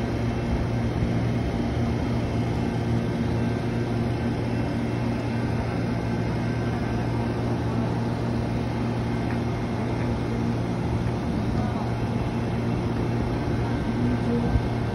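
Amtrak passenger train standing at the platform, giving off a steady, even idling hum with a low drone.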